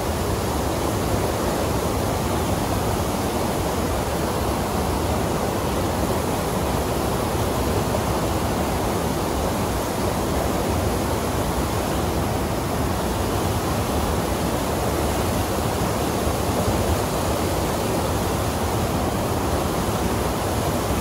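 Steady rush of a small waterfall cascading over rocks into a pool, an even, unbroken noise.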